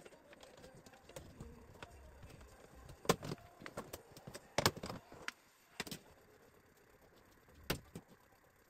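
A handful of sharp clicks and knocks, a second or more apart, from the frame and panel of an LED TV being handled while it is taken apart.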